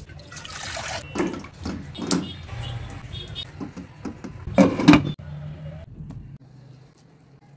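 Kitchen sounds: a gas burner's flame hissing at first, then water and chicken pieces in a frying pan with several knocks from a wooden spatula, the loudest a pair about five seconds in. It falls quiet for the last second or so.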